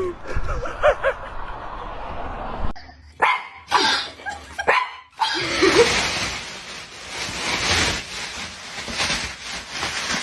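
Short animal yelps and a few sharp knocks in the first half. From about five seconds in, a thin plastic carrier bag rustles and crinkles steadily as a cat moves about inside it.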